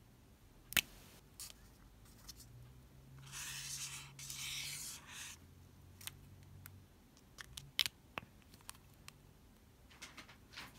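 Felt-tip highlighter dragged across paper for about two seconds, a scratchy rub of the tip drawing an outline. A sharp plastic click about a second in and a few small clicks near the end come from handling the pens.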